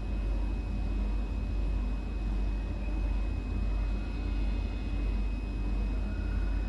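Washing machine running, a steady low rumble that swells and eases about once a second.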